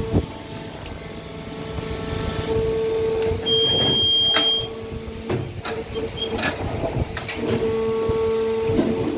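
Plastic injection moulding machine running with a steady hum, broken by sharp clacks as its sliding safety door is worked and moulded parts are taken out, and by a brief high tone about three and a half seconds in.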